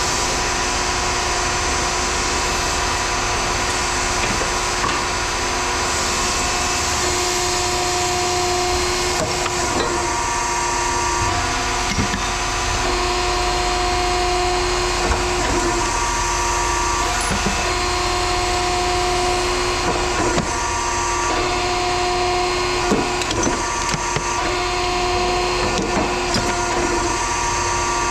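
Heavy machinery running steadily, with a whine that rises in and drops out every few seconds and scattered metallic knocks.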